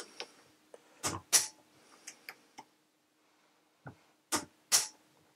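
Laser Tools 3/8-inch-drive insulated slipper torque wrench, set to 17.5 Nm, clicking as it slips at its set torque on a torque tester. Two pairs of sharp clicks, one about a second in and one near the end.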